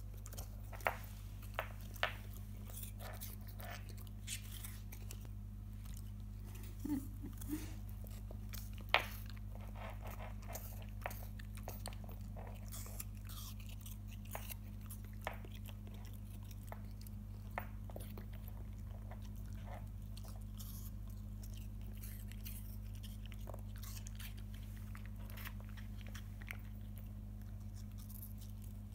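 Nine-week-old golden retriever puppy crunching and chewing small pieces of apple, with irregular crisp crunches, the loudest in the first ten seconds or so.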